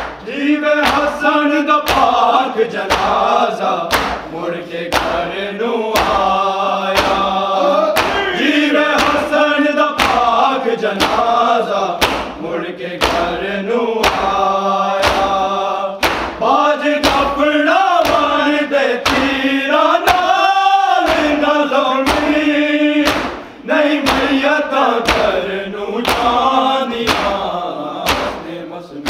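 Voices chanting a noha, a Shia lament, in a melodic group recitation over a steady held low tone. It is kept in time by sharp slaps about one and a half a second, the beat of matam (chest-beating).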